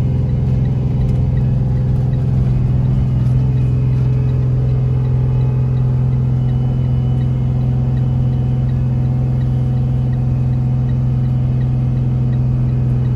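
Inside the cab of a Jayco Seneca Super C motorhome on a Freightliner diesel chassis, driving down a mountain highway: a steady low engine drone with road noise. Under it, faint, evenly spaced ticking of the hazard-light flasher.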